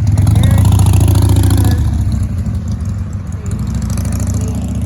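A car driving past close by, loudest in the first couple of seconds and then fading into a lower steady rumble.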